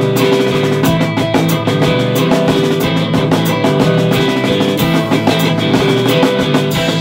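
Live rock band playing: guitar chords over a drum kit keeping a steady beat with cymbal hits.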